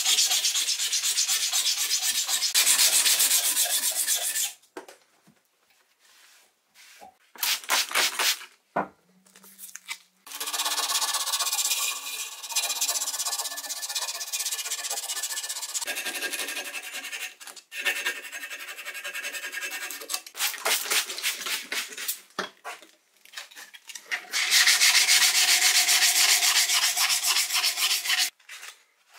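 Abrasive sanding and rubbing on the rusty steel of an old wrench, taking the rust off. It comes in several long stretches of a few seconds each, broken by short pauses with a few single strokes.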